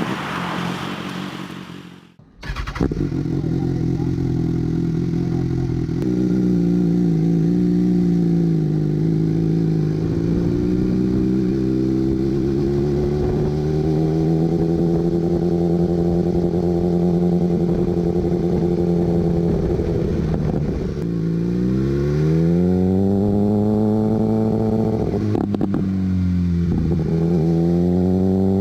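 BMW S1000R inline-four engine through an SC Project full-titanium slip-on exhaust, running at steady revs. Near the end the pitch dips and climbs back twice as the throttle is closed and opened again.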